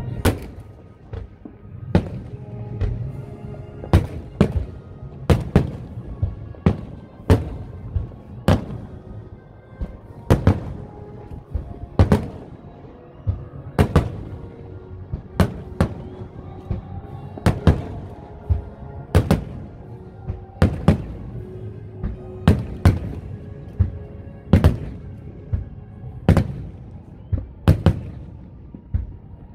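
Aerial firework shells bursting overhead in a steady barrage, with a sharp bang roughly every second.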